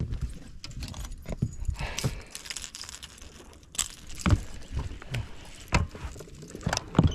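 Irregular knocks, clicks and rattles of fishing gear being handled in a boat: rod, reel and lure hooks.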